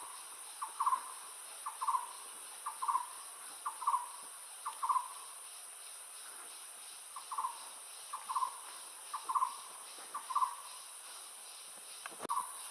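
Forest ambience: an animal call repeating about once a second, each a short note followed at once by a longer one, in two runs of five with a pause between, over a steady high-pitched insect drone.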